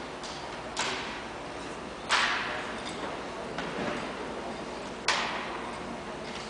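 Three sharp slaps of a drill rifle being smacked into a cadet's hands during armed drill, the second and third the loudest, each echoing in a large gymnasium.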